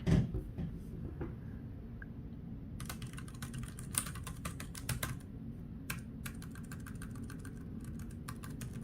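Keys of a small Bluetooth numeric keypad being tapped: sharp plastic key clicks in quick runs, starting about three seconds in. A single thump at the very start is the loudest sound.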